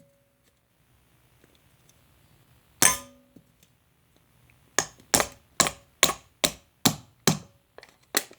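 Metal can being struck to punch holes in it: one clanging strike with a short ring, then a run of about nine quick strikes, a little over two a second.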